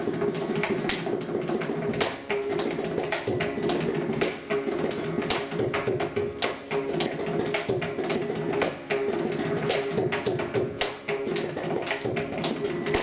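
Mridangam playing a fast, dense run of strokes, with its right head ringing at a steady pitch between them.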